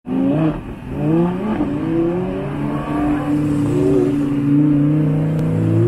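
Engines of a group of sports cars and a motorcycle revving and accelerating. The pitch rises and falls in the first second or two, then settles into a steady loud drone.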